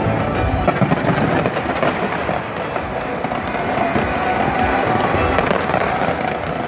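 Large fireworks display: pyrotechnics firing off a skyscraper in a dense, rapid crackling of pops and bangs, with a cluster of sharper bangs about a second in. Music plays along underneath.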